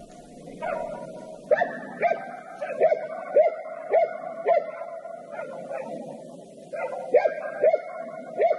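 A hunting laika barking repeatedly: a run of about six barks, a pause of a couple of seconds, then three more. This is typical of a laika baying at a wild boar.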